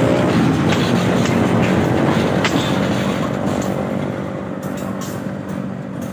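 KAI CC201 diesel-electric locomotive engine running loudly and close by, with a few sharp clacks in the first few seconds. The sound fades away from about four seconds in.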